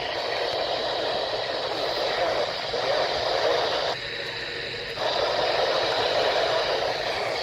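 Static hiss from a radio receiver. It is steady noise with a faint thin tone running through it, and it briefly thins out about four seconds in.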